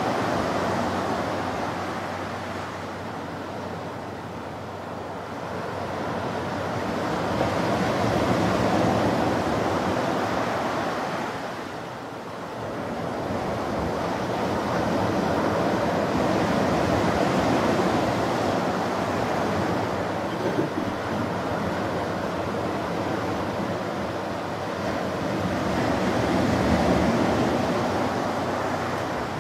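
Ocean surf breaking on the beach, a steady wash that swells and fades slowly, rising about three times as waves come in.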